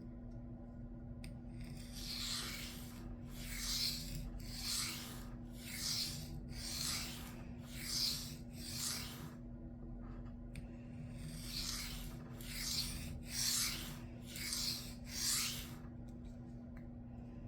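Knife blade being stroked across a sharpening stone in light, even scraping passes: about seven strokes, a short pause, then about five more. These are finishing strokes with almost no pressure, just the apex of the edge touching the stone.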